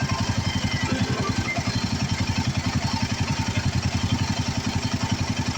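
Royal Enfield Himalayan 450's single-cylinder engine idling steadily with even, rapid pulses, running with a FuelX Pro+ fuel module connected.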